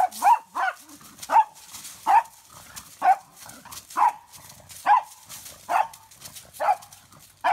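Pug barking in short, sharp, high yaps, about ten of them at roughly one a second.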